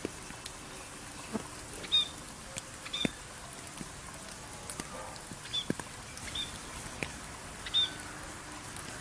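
Steady rain falling, with a bird giving short high chirps about five times a second or two apart, and scattered drips.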